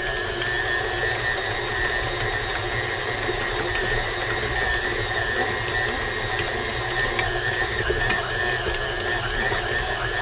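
KitchenAid Artisan Design tilt-head stand mixer running steadily at speed 2, its dough hook kneading a ball of chapati dough in a glass bowl. A constant motor hum with a high whine over it.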